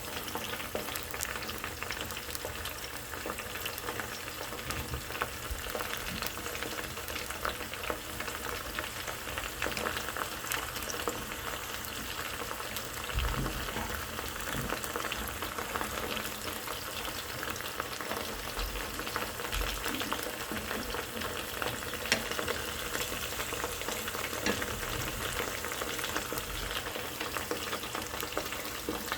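Broccoli deep-frying in oil in a small Sierra cup: a steady crackling sizzle with scattered sharper clicks.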